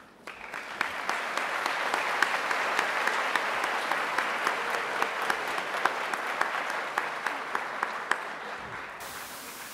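Audience applauding: many hands clapping, starting just after the speech ends, holding steady, then thinning out near the end.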